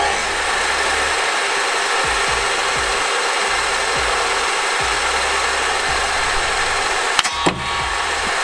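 Table saw running at full speed, a steady loud motor-and-blade noise, with one sharp crack a little past seven seconds in as a sharpened wooden projectile is fed into the blade and flung out.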